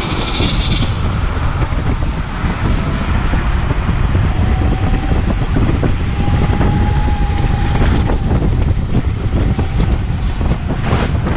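Wind buffeting the microphone of a rider moving fast on a road, a steady heavy low rumble with a few short knocks near the end.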